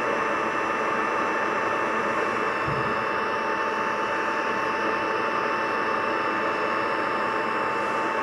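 A machine running steadily: an even rushing noise with constant high whines, unchanging throughout.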